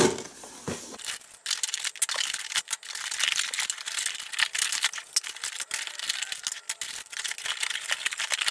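A toy playset's cardboard box being opened and its plastic parts handled: irregular rustling, scraping and clicking of cardboard and plastic, starting about a second in.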